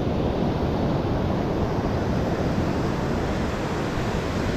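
Steady rush of ocean surf on a beach, with wind on the microphone.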